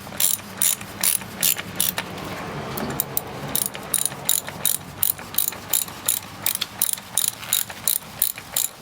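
Socket ratchet wrench clicking in a steady run of about three clicks a second, with a brief pause about two seconds in, as the oil filter housing cap is tightened down during an oil change.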